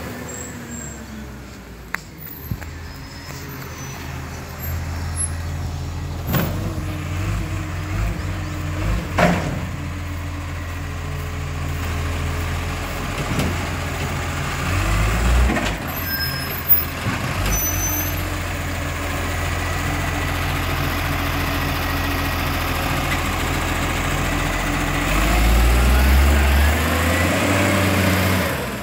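Garbage truck's diesel engine running steadily as it drives slowly along the street, with a few sharp knocks in the first half. The engine rumble grows loudest near the end as the truck passes close by.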